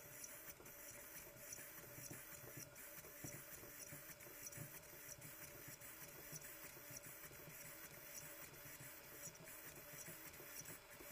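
Faint whirring and clicking from a small servo motor on a radio-controlled car as the transmitter's steering wheel is turned. The receiver is not working properly.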